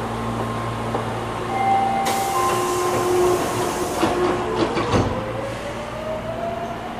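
Hankyu 8300 series commuter train at a station stop: a steady equipment hum, then about two seconds in a loud hiss of air, with several short steady tones around it. A thump comes near five seconds, and a slowly rising whine follows as the traction motors start the train moving off.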